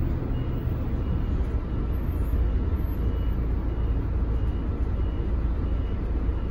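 Scania K400IB city bus with a 400 hp engine, heard from on board while driving. A steady low engine and road rumble with no sharp change.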